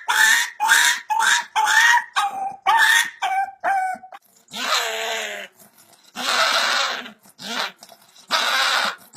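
A dog vocalising as if singing: a quick run of short, high, pitched yelps, about three a second, for the first four seconds, then three longer, rougher howl-like calls.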